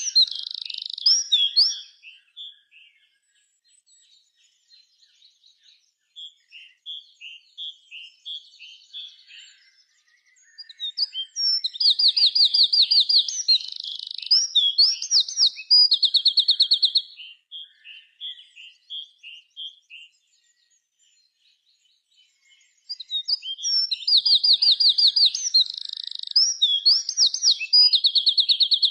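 A songbird singing long, loud phrases of rapid trills and whistled notes, repeated about every twelve seconds, with softer scattered chirps in between.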